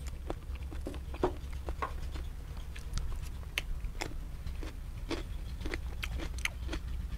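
A person chewing a mouthful of raw shrimp marinated in fish sauce close to the microphone: irregular wet mouth clicks, several a second, over a steady low hum.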